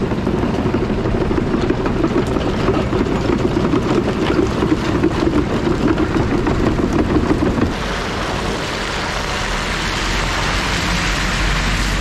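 Tracked excavator-based logging machine driving past on gravel, its diesel engine running under a dense clanking clatter from the tracks. About eight seconds in, the clatter gives way to a steadier rushing noise as a truck follows.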